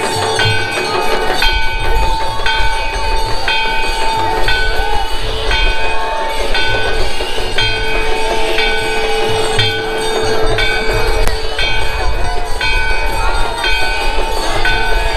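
Temple aarti: bells struck in a steady rhythm about once a second over a regular drumbeat, with a steady held tone underneath.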